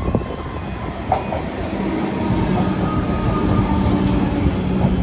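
Melbourne suburban electric train arriving alongside the platform and growing louder as it passes close by. There is a sharp clank about a second in, and a steady hum sets in about two seconds in.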